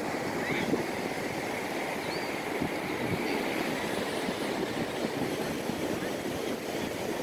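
Steady rushing beach ambience of wind and surf, with a few faint short high chirps over it.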